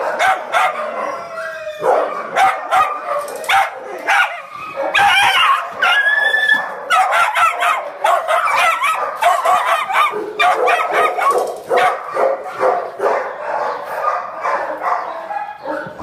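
Several small kennel dogs and puppies barking over one another in quick, overlapping short barks, excited and jumping up. A few longer, higher cries come about five to seven seconds in.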